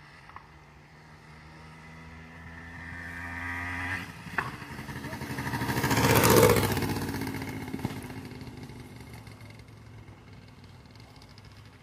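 Yamaha DT 175 single-cylinder two-stroke trail bike accelerating toward and past, its engine note climbing for the first few seconds, loudest about six seconds in, then fading as it rides away. The engine is freshly rebuilt and still being run in.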